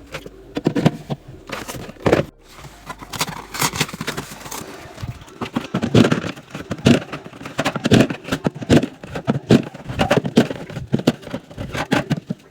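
Drink cans and bottles clinking and knocking against each other and the fridge shelves as they are unpacked and stocked, played sped up, so the knocks come in a rapid, irregular run.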